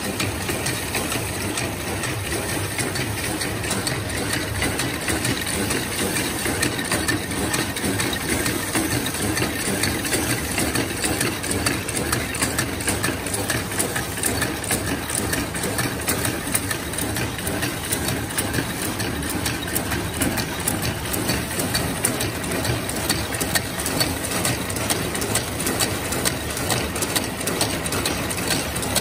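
Screw-making machine running steadily, its feed levers and cutting mechanism making a rapid, continuous metallic clatter.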